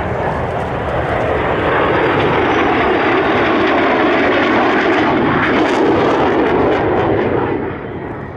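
Jet engines of NASA's F-15 and F/A-18 passing together in formation, a loud rushing noise that builds to a peak and then drops off sharply near the end.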